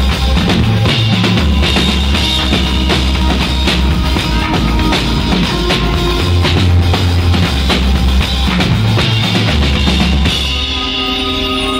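Live band playing electronic pop: a drum kit keeps a steady beat over a heavy, pulsing synth bass and keyboards. About ten seconds in the drums drop out and held synth chords carry on.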